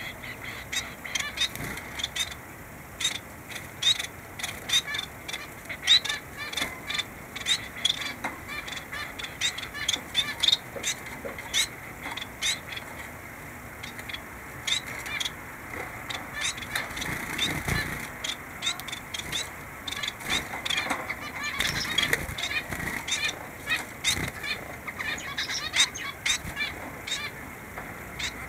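Small caged finches calling: a busy, irregular run of many short, sharp calls, several a second, with no pause.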